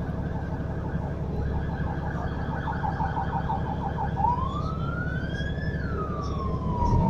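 Electronic siren sounding over a steady low vehicle-engine rumble: first a rapid pulsing tone, then from about four seconds in one slow wail that rises and falls. The engine rumble grows louder near the end.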